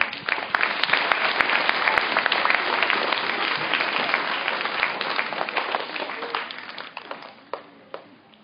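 An audience applauding: many hands clapping, starting abruptly and dying away over the last couple of seconds.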